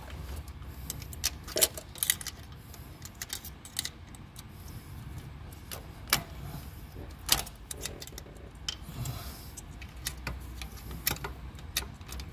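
Sharp metallic clicks and taps, irregularly spaced, from a screwdriver and steel valve-train parts as rocker arms are levered out over the exposed camshaft of a Dodge 4.7 V8, with a steady low hum underneath.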